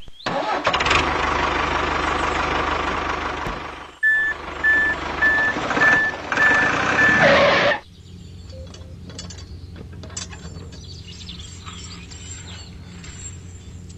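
Vehicle reversing alarm beeping, about six short high beeps at roughly two a second, over loud engine noise with a low hum. The noise drops to a quieter steady hum near the middle.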